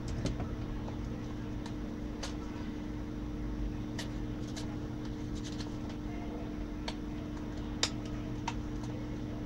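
Steady low hum with scattered light clicks and taps of small hand tools and plastic being handled on a workbench, one sharper click near the end.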